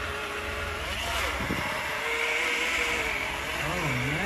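PopBabies battery-powered portable blender running steadily, its small motor and blades whirring through a strawberry, banana and milk mix. It is running on the partial charge it came with out of the box.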